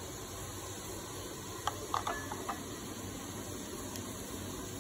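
Steady background hiss with a few light clicks and taps, the clearest about two seconds in and another near the end.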